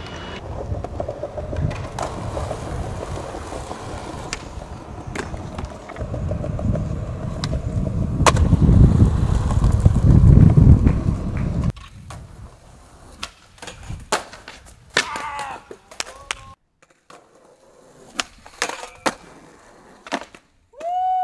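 Skateboard wheels rolling over rough pavement with sharp tail pops and board landings; the rolling is loudest about 8 to 11 seconds in. After a cut near the middle it turns quieter, with scattered clicks and knocks from the board.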